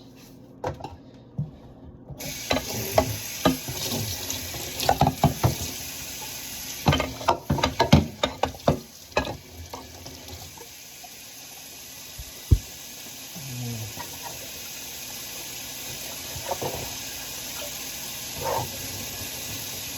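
Kitchen tap turned on about two seconds in, water running steadily into the sink, with dishes and utensils clattering and clinking for several seconds while they are washed.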